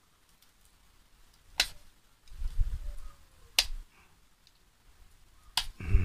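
Three sharp metallic clicks about two seconds apart as a small screwdriver pries at the housing of a red motorcycle air horn, with low bumps of the horn being handled between them.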